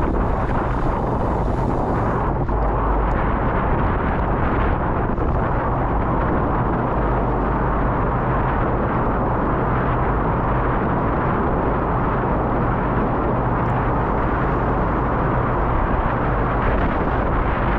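Loud, steady wind buffeting the microphone of a camera carried on a moving bicycle, a dense noise heaviest in the bass.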